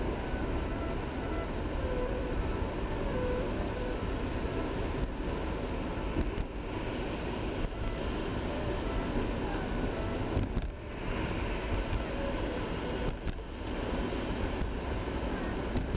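Car driving on a snow-covered highway, heard from inside the cabin: steady tyre and road noise over the engine's hum, dipping briefly twice in the last third.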